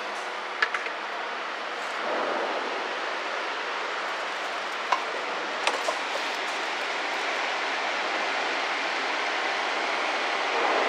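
Steady rushing outdoor noise with a few sharp clicks and knocks on metal: one just over half a second in, then a small cluster around five to six seconds in. They come from someone moving through an old excavator's steel cab and onto its deck.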